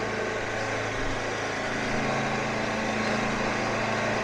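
Husqvarna Z246 zero-turn mower's 20 hp Briggs & Stratton Endurance V-twin engine running steadily while the mower drives across grass, getting a little louder about a second in.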